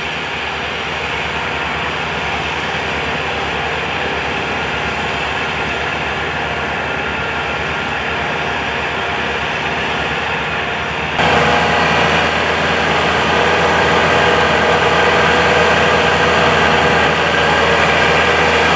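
An engine running steadily, becoming abruptly louder about eleven seconds in and holding there.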